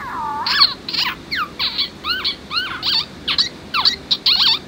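Electronic hamster squeaks from a plush toy hamster's built-in speaker: a quick run of short, high chirps, several a second.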